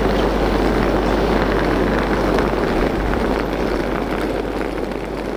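Steady din of railway station ambience: a dense, noisy mix over a constant low hum, slowly fading out over the last couple of seconds.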